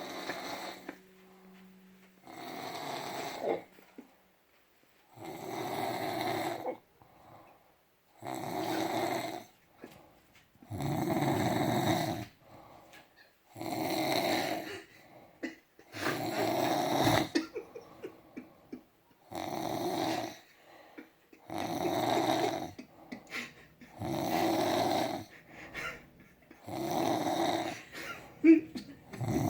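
A man snoring in a steady rhythm, one loud rasping snore every two and a half to three seconds, with quieter breaths between them.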